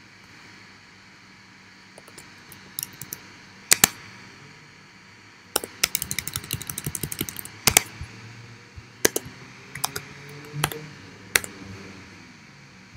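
Typing on a computer keyboard: a few separate keystrokes, then a quick run of key clicks about halfway through, then several single, sharper strokes.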